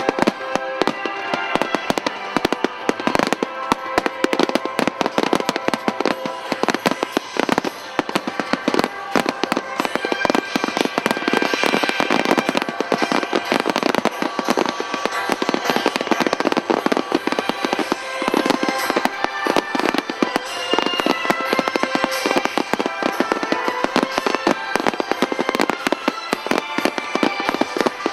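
Fireworks finale barrage: many aerial shells and ground-level fireworks going off in rapid, overlapping bursts with no let-up, with music playing underneath.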